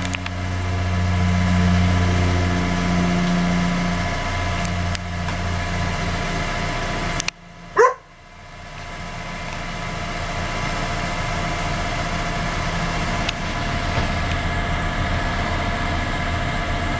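Engine of a car-carrier tow truck running steadily, a low hum, while its tilt bed is used to unload a car. About eight seconds in the hum briefly drops away and a single short, high, bending sound cuts in.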